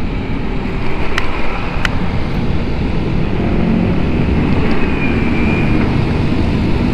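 Vespa Sprint S scooter's single-cylinder four-stroke engine running steadily while riding, with wind noise on the microphone.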